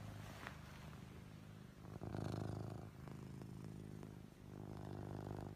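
Ragdoll cat snoring in deep sleep: a low rumble that swells and fades with each breath, loudest about two seconds in and again near the end.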